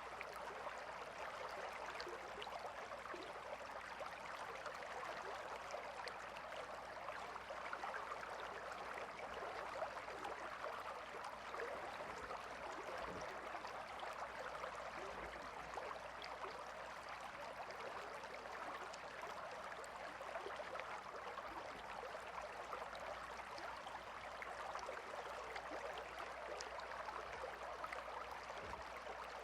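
River water flowing steadily: an even rushing with fine small splashes throughout.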